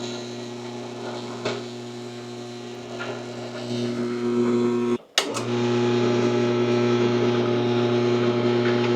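Belt-driven drill press running steadily with a low hum while drilling a hardened steel bracket. About five seconds in it cuts out briefly with a click, then carries on louder.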